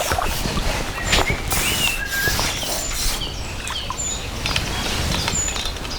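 Small birds chirping in short, high calls about once a second, over a steady outdoor background rustle.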